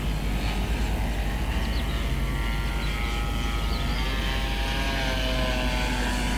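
Brushless electric motor and propeller of an RC model warbird running in flight, heard from a camera on the airframe, a steady whine over a low buzz and wind noise. The whine shifts in pitch about four seconds in as the throttle changes. The propeller is unbalanced and shaking the motor mount.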